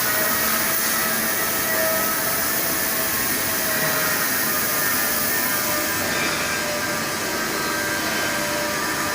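Hartford CNC milling machine running steadily, a set of thin whining tones over a loud, even hiss of machining.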